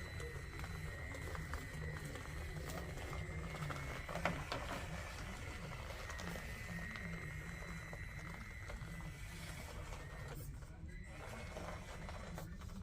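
Traxxas TRX-4M crawler's small electric motor and gearing whining steadily as it drives over the course, with one sharp knock about four seconds in.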